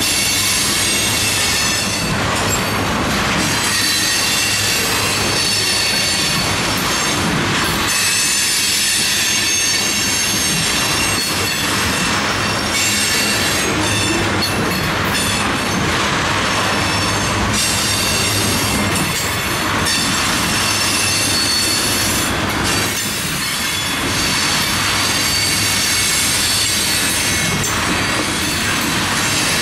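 Railroad tank cars of a freight train rolling past close by: a steady rumble and clatter of steel wheels on the rails, with high wheel squeal holding several thin steady tones.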